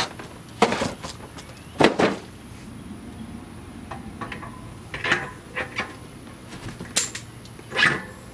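A handful of irregular knocks and clunks as a spoked bicycle wheel is handled and fitted onto a trike's rear axle shaft, with the hub and metal parts bumping against the frame.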